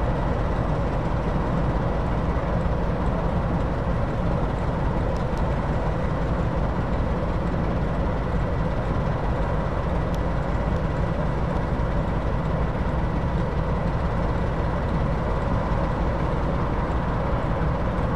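British Rail Class 08 diesel-electric shunter's English Electric six-cylinder engine running steadily at low revs, with a thin steady whine above the engine note.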